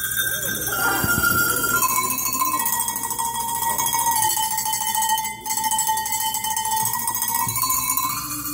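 A set of tuned Alpine cowbells played by hand, ringing a slow melody: each note is held ringing for two to three seconds before it moves to the next, with a brief break about five seconds in.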